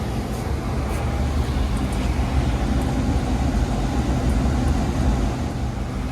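Oil burner on a new oil-fired boiler firing steadily, a low even rumble of fan and flame. The combustion reading has just been judged good.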